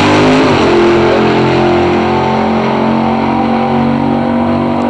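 Drag-racing car engine at full throttle down the strip. Its pitch drops as it goes past near the start, then it runs on steadily and slowly fades as it pulls away.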